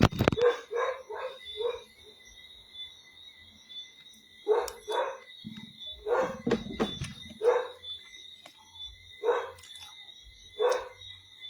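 A dog barking in short, separate barks, about a dozen in all: a quick run of four near the start, then pairs and single barks spaced out through the rest.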